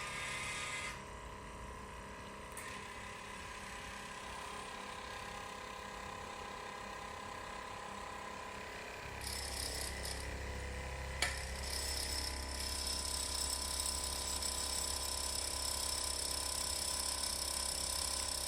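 Robotic massage arm's motors and gears running with a steady mechanical whir. About nine seconds in, a low hum and a higher whine join and get louder, and a single sharp click comes about eleven seconds in.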